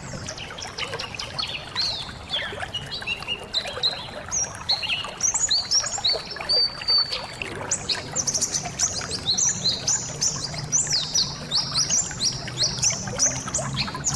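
A flock of white-eyes (pleci) twittering, with many quick, high, falling chirps overlapping in busy runs. Running water trickles underneath.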